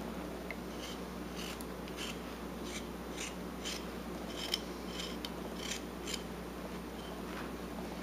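Whittling knife slicing thin shavings from a wooden carving: about a dozen short, crisp cuts, coming most closely together in the middle.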